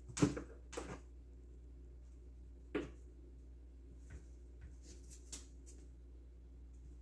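A small puppy moving about on a laminate floor and nosing at a broom: a few short soft knocks and clicks over a low steady hum, the loudest near the start and another nearly three seconds in.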